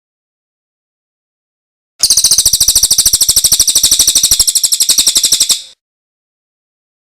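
A small songbird's rapid trill of sharp, high notes repeated evenly at about a dozen a second, starting abruptly about two seconds in and fading out after about three and a half seconds, from a songbird tutor recording of pijantung and cililin calls.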